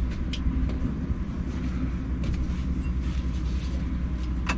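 RV air conditioner running with a steady low hum, with a sharp click shortly after the start and another near the end.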